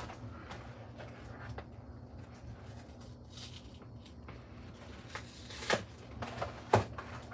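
Plastic wrapping of a sausage package crinkling as it is torn open by hand, with a few sharper, louder crackles near the end, over a low steady hum.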